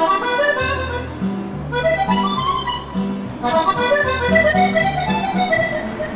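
Instrumental background music: a quick melody of short notes over a stepping bass line.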